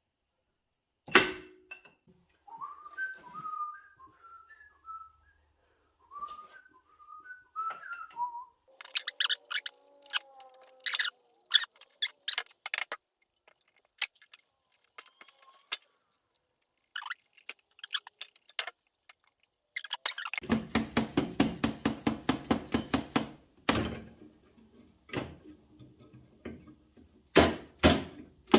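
A man whistling a short tune of quick notes, followed by bursts of rapid clicking and clatter from hand tools and engine parts being worked on.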